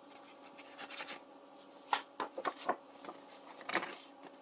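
Paper dollar bills and a clear plastic binder pocket being handled: soft rustling and crinkling, with a run of sharper crinkles about two seconds in and another near the end.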